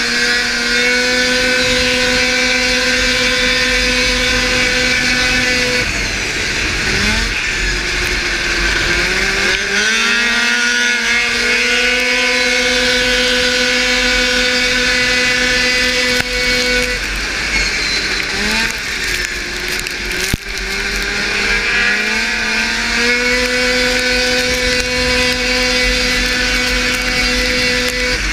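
Racing snowmobile engine from a 600-class race sled at full throttle, holding one steady high pitch. Twice the pitch drops as the throttle comes off for a turn, then climbs back up to the same pitch. Wind rushes over the microphone throughout.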